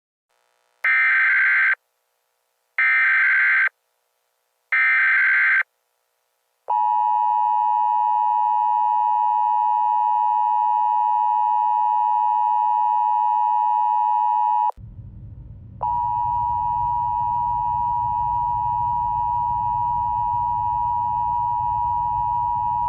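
Emergency Alert System tones. First come three short data bursts of the alert header, about two seconds apart. Then the two-tone attention signal holds steady for about eight seconds, breaks off for a second to a low static rumble, and sounds again over the rumble for another eight seconds.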